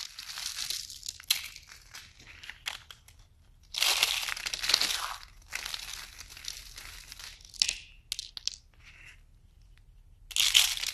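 Hands crushing brittle dried soap curls into flakes: a crisp crackling crunch in bursts. The loudest burst comes about four seconds in, then smaller crackles, a quiet stretch with a few ticks, and another loud crunch near the end.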